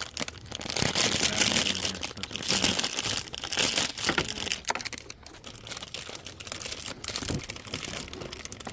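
Plastic crinkling and rustling with scattered small clicks and knocks, loudest in the first few seconds, as plastic toy parts and packaging are handled.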